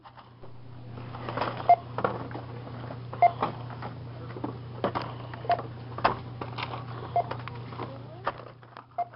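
Checkout barcode scanner beeping as toys are scanned one at a time, five short beeps about every two seconds. Between the beeps, plastic toy packaging rustles and items knock on the counter.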